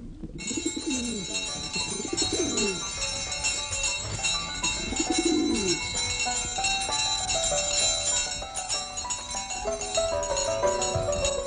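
Pigeons cooing three times, each a falling call about a second long, over music with a bright, steady jingling. From about halfway a stepped melody takes over.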